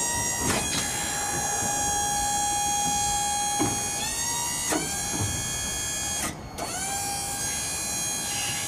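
Electric-hydraulic pump motor of a Kelderman roll-off bed whining steadily as the bed tilts off the truck chassis under remote control. It stops and restarts several times as the button is let go and pressed again, each start gliding up in pitch. The longest break comes about six and a half seconds in.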